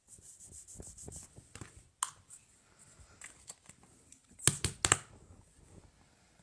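Paper rustling as cut pieces are handled and pressed onto a paper tag, then a few sharp plastic clicks as a Scotch glue stick is handled and stood on the cutting mat.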